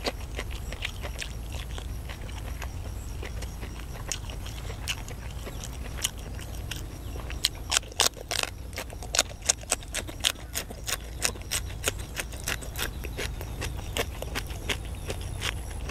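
Close-up chewing and crunching of a mouthful of raw greens, with a quick run of sharp crunches from about halfway through.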